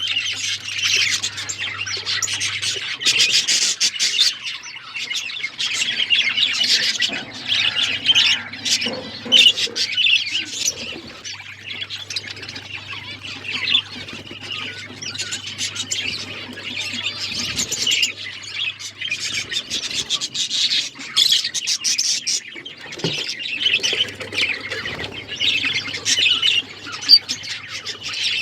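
Several budgerigars chirping and chattering nonstop in a dense jumble of short, high calls.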